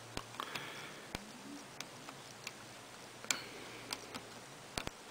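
Light, irregular clicks and ticks of small steel parts handled by fingers: a loosened screw and lever being worked free from a Kleinschmidt TT-98 teletype's rangefinder mechanism, with two brief scratchy rubs and a quick double click near the end.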